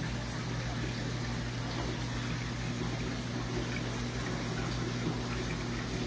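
Aquarium water circulating, a steady rush and trickle of water over the constant low hum of a running pump.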